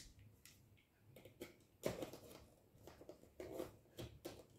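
Utility knife blade slicing and scraping along the sealed edge of a thin cardboard box, in a few short faint scratchy strokes, with rustling as the box is handled.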